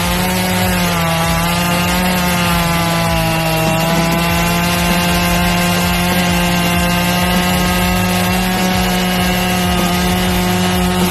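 Husqvarna 550 XP Mark II two-stroke chainsaw with an 18-inch bar and full-chisel chain running at full throttle while cutting through a tree trunk. The engine holds a steady high pitch that sags slightly a couple of times as the chain bites.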